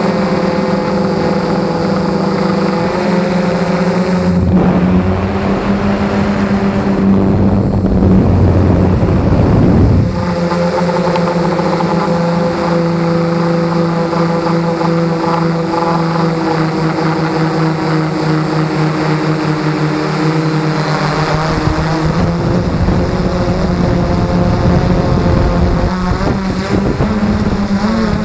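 S-500 quadcopter's motors and propellers running steadily, heard close from the camera on board, their pitch shifting a few times. The sound turns rougher and noisier for a stretch about 4 to 10 seconds in.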